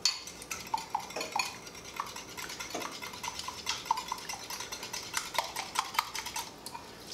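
Wire whisk beating eggs in a small glass bowl: a rapid, uneven run of light metal-on-glass clicks and taps, some with a brief ring. It thins out near the end.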